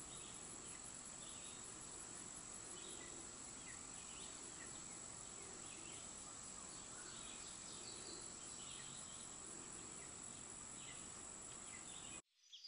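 Faint, steady background hiss with a thin, continuous high-pitched whine, and a few faint soft ticks scattered through it. It cuts off abruptly near the end.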